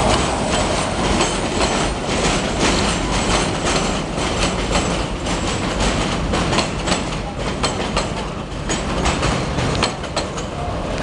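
Work train flatcars rolling past on elevated subway track, with a steady rumble and many sharp wheel clicks over the rail joints.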